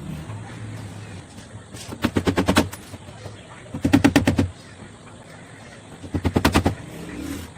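Woodworking power tool going off in three short bursts of rapid clicking, each about half a second long and about two seconds apart, over a steady low hum.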